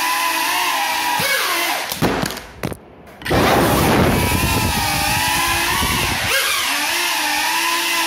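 Small FPV quadcopter's motors whining on broken propellers, several tones wavering up and down together. About two seconds in the whine breaks up with knocks and brief dropouts, then a short burst of loud rushing noise before the steady whine resumes.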